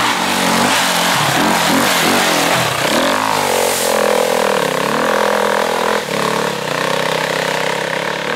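Dirt bike engine revving hard as it accelerates up a dirt trail. The pitch swings up and down for the first few seconds, then holds high and steady, with a brief dip about six seconds in.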